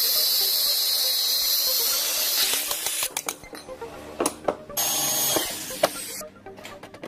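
Angle grinder with a thin cutting disc cutting through a steel strip: a loud, steady, high grinding hiss that stops about two and a half seconds in. After that come scattered sharp knocks and clicks of metal being handled.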